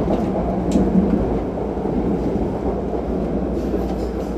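Taoyuan Airport MRT train in motion, heard at the gangway connection between two cars: a steady low running rumble with a few faint clicks.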